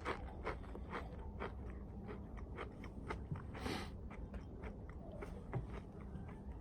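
A person chewing crunchy rolled corn tortilla chips (Takis) close to the microphone: irregular crunches, several a second, strongest at first and growing fainter as the chip is chewed down.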